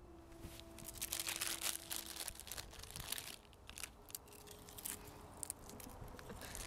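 Foil crisp packet (Doritos) crinkling as it is handled, with a tortilla chip crunched and chewed about four seconds in.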